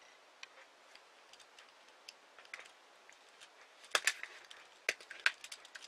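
Small 4 mm beads clicking against one another as the beadwork is handled and shaped: scattered light ticks, with a quick run of louder clicks about four seconds in.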